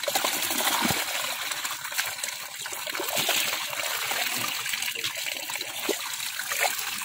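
Water pouring steadily from an opening in a mud bank into a woven basket heaped with small puti fish (pool barbs), splashing down over the catch.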